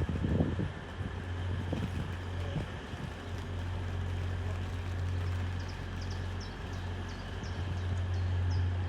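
A train running steadily with a low, even hum, with a few short high chirps over it in the last few seconds.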